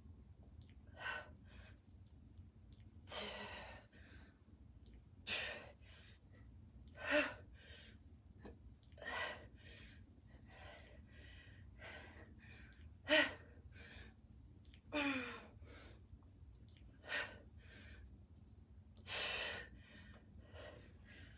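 A person's heavy breathing during kettlebell goblet squats: a sharp, breathy exhale about every two seconds, one per squat, some with a short falling voiced sound like a sigh.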